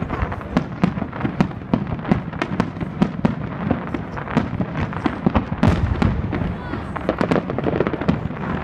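Aerial fireworks display: shells bursting in quick succession, a dense run of bangs and crackles, several a second, with one especially sharp bang a little after halfway.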